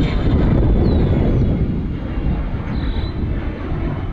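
Small airplane flying low overhead, a steady rumble that is loudest in the first second or so and then eases off slightly.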